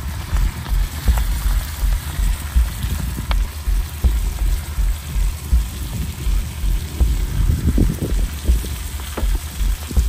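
Food sizzling in a frying pan over a wood fire, with a few faint crackles and a low, uneven rumble underneath.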